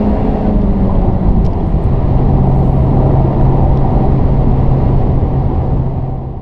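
Honda Civic Type R FK8's 2.0-litre turbocharged four-cylinder engine heard inside the cabin at about 170 km/h, with loud wind and tyre noise. Its note drops to a lower steady drone about two seconds in, and the sound fades out near the end.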